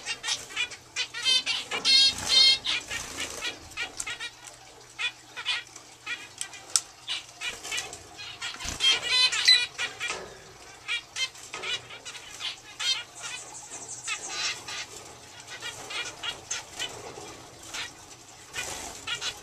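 Zebra finches chirping and calling, with a male chestnut-flanked white zebra finch singing a rapid run of repeated notes about a second in and again around nine seconds in. A few sharp clicks come in between.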